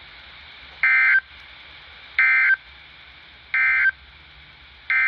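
Emergency Alert System SAME data tones from a weather radio broadcast: three short, identical warbling bursts about a second and a half apart, the end-of-message code that closes a severe thunderstorm warning. Near the end a longer burst of the same tones begins, the header of a following alert.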